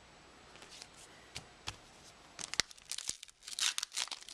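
A few light clicks. Then, from about two and a half seconds in, a dense crinkling and tearing as a pack of Topps baseball cards is torn open.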